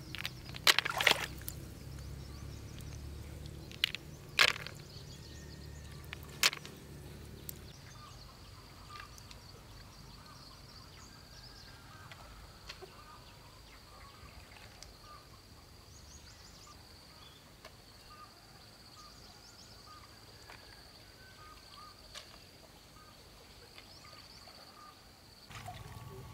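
Snails dropped into a plastic basin, knocking against the plastic and each other in a few sharp clacks during the first seven seconds, over a low rumble. After that, faint rural ambience: a steady high-pitched whine with scattered soft chirps.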